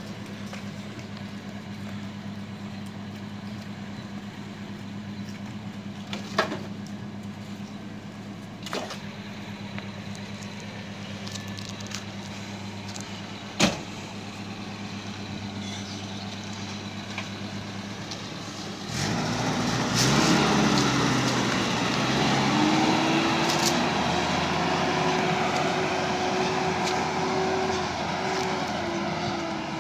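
An engine running steadily at a low pitch, with a few sharp knocks. About two-thirds of the way in, a louder engine revs up, its pitch rising, and settles into a steady run at a higher pitch.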